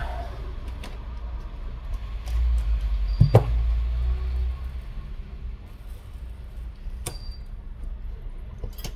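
Small tools and parts being handled during a smartphone teardown: a few sharp clicks and taps, the strongest a little over three seconds in and at about seven seconds, over a low handling rumble that fades about halfway through.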